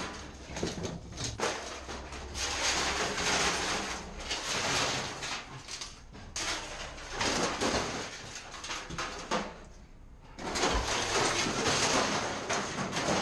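Ferrous scrap metal clattering and scraping as pieces are thrown and dragged off the bed of a box truck onto a scrap pile, in repeated bursts of knocks and grinding noise with a short lull about ten seconds in.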